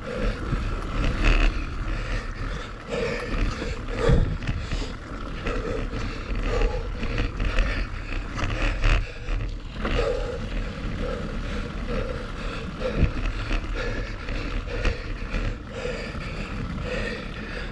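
Mountain bike riding down a dirt singletrack: tyres rumbling over the packed dirt and leaf litter, the bike rattling over bumps, and wind buffeting the action camera's microphone. Scattered knocks from roots and stones come through, along with a faint regular pulse about every three-quarters of a second.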